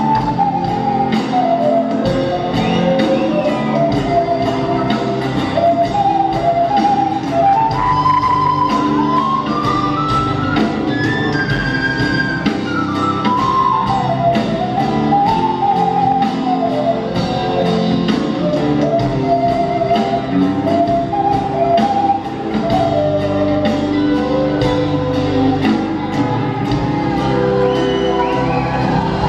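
Live Andean folk-rock band playing an instrumental passage: a wind-instrument melody climbs and then falls back, over electric bass, drum kit and guitar with a steady beat.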